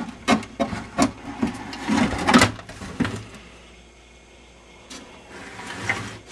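Knocks, clunks and rubbing from handling an old wooden radio cabinet and its metal chassis: a quick run of sharp knocks in the first three seconds, then a quieter stretch with a few soft knocks.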